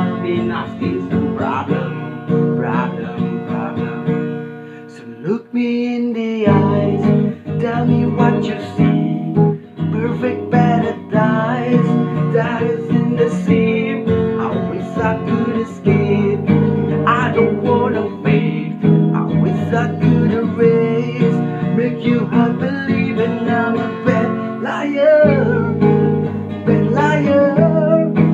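Acoustic guitar music, strummed chords playing an instrumental passage; the low part drops out for a couple of seconds about four seconds in, then returns.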